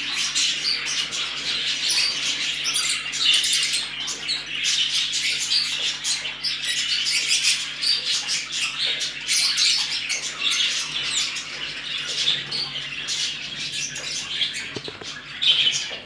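Small caged parrots chattering and chirping without pause, with a faint low steady hum underneath.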